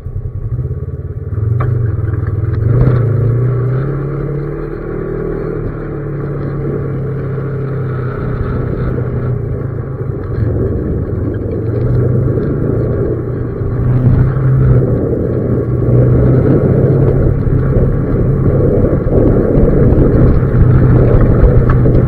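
Engine of a small off-road vehicle running as it pulls away and drives along a rough gravel dirt track. Its pitch rises and falls a couple of seconds in, and it runs louder from about two-thirds of the way through.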